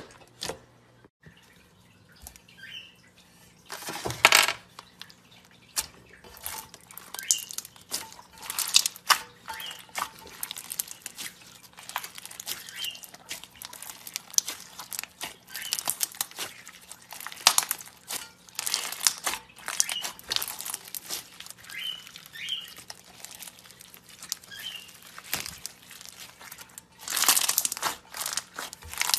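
Clear slime packed with plastic beads being stretched, squeezed and pressed by hand, giving a steady run of small crackles, pops and crunches. Louder bursts of crackling come about four seconds in and again near the end.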